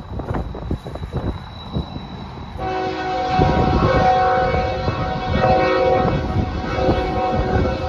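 BNSF freight locomotive's air horn sounding a multi-note chord, starting about two and a half seconds in and held with short breaks. Gusty wind rumbles on the microphone throughout.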